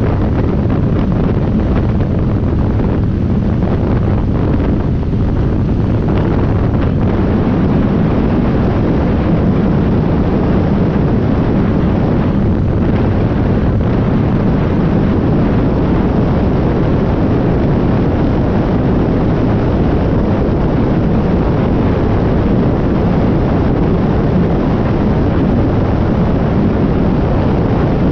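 UTV (side-by-side) driving at speed on a sandy dirt track: a steady engine and driveline drone mixed with heavy wind buffeting on the microphone.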